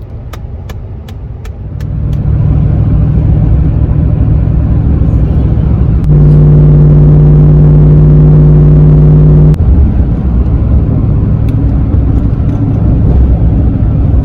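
Vehicle engine running as it drives off, with a few light ticks in the first two seconds. From about six to nine and a half seconds in it holds a louder steady hum, which cuts off suddenly, and it then runs on at its earlier level.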